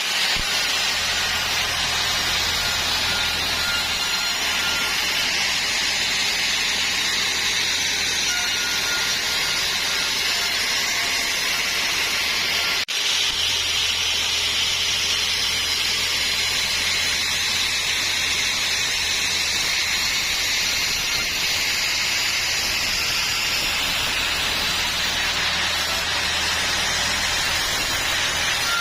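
Sawmill saw running and cutting mahogany: a steady hiss of sawing over a constant machine hum.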